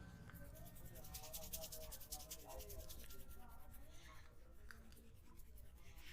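Faint hands rubbing and tapping on a person's head and neck during a massage, a quick run of short, soft taps.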